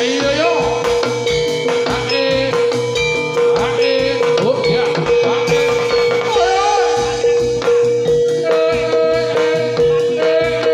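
Live Javanese gamelan music accompanying a jathilan horse dance: a steady beat of drum strokes under ringing metallophone notes and a held tone, with a voice sliding in and out.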